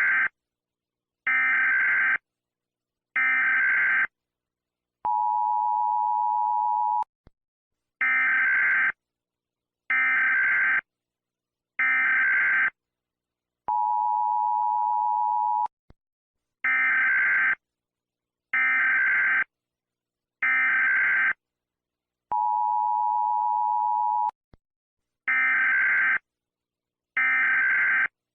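Emergency Alert System tones: three short buzzy digital data bursts, like a SAME header, then a steady two-tone attention beep lasting about two seconds. The cycle repeats three times, and two more bursts begin near the end.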